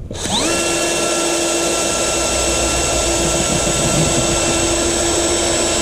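Power drill starting up, its whine rising quickly in pitch, then running at a steady speed as it drills into the wooden benchwork.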